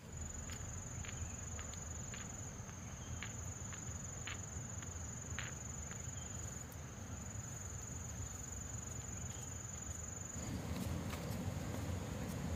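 A steady, high-pitched insect trill, breaking off briefly twice and stopping about ten seconds in, over a low outdoor rumble with a few scattered small clicks.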